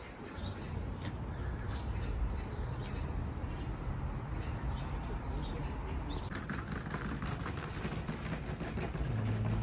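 Outdoor ambience with low rumbling wind noise on the phone's microphone; from about six seconds in, a run of light ticks and taps joins it.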